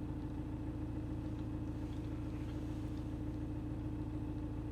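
Car engine running steadily at low revs, heard from inside the cabin as an even hum and rumble.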